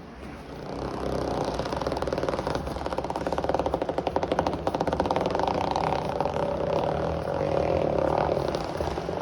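A 327 Corvette small-block V8, breathing through a dual-quad tunnel ram and fender-well headers, running loud, picking up about a second in and holding with a rapid uneven pulsing.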